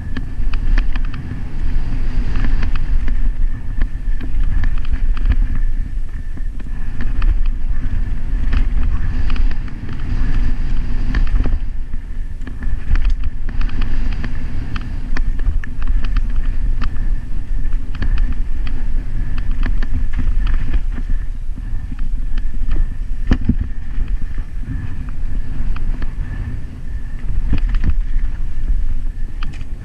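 Mountain bike descending fast on a dirt and loose-stone trail: heavy wind buffeting and low rumble on the microphone, with frequent clicks, knocks and rattles from the bike as its tyres run over stones and bumps.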